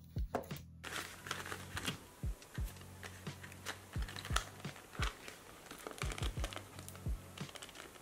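Plastic packaging of a fineliner pen set handled by hand: crinkling and small clicks and taps of fingers and nails on the plastic, over background music with a steady beat.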